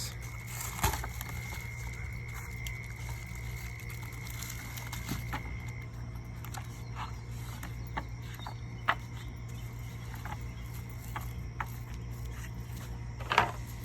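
Scattered light knocks and clicks over a steady low hum, the loudest knock near the end.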